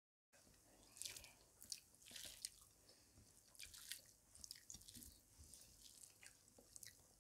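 Faint wet clicks and squishes of fingers mixing rice and curry on a plate, with soft chewing mouth sounds. The audio is dead silent for a moment at the start, then the small clicks come in rapid, irregular succession.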